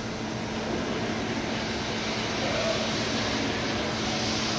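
Mori Seiki NHX 8000 horizontal machining centre powered up and running, giving a steady machine whir with a constant low hum.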